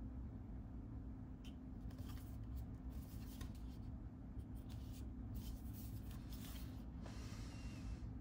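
Quiet handling noise: fingers rubbing and lightly tapping the plastic casing of a UniFi Gateway Max (UXG-Max) as it is turned over, with a longer rub about seven seconds in, over a steady low hum.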